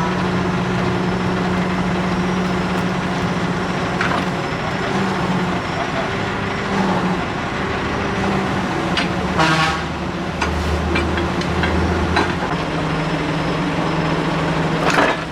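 A heavy vehicle engine running steadily, with a deeper rumble in the middle and a few sharp metallic knocks.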